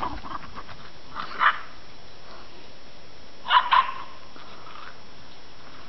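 Border terrier barking in play: one short bark about a second and a half in, then a quick pair of barks a little past the middle.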